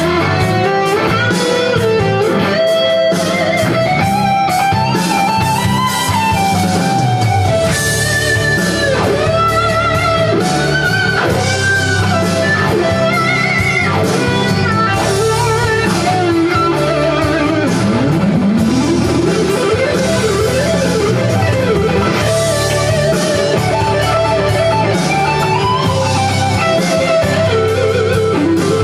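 Electric guitar playing fluid lead lines full of bends and slides, over a backing with bass and drums.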